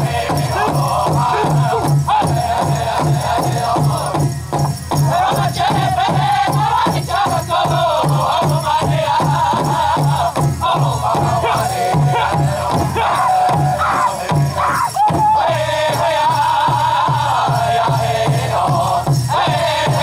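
Pow wow drum group singing in high, wavering voices over a steady, even beat on a large drum.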